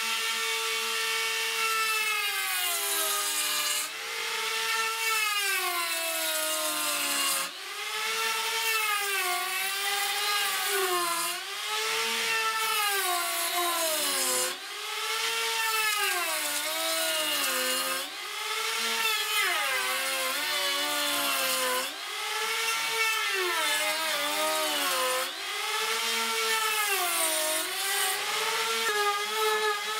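Electric rotary cutters on a multi-spindle copy-carving duplicator cutting wooden blanks. The motors whine steadily, their pitch sagging and recovering every second or two as the cutters bite into the wood and are eased off.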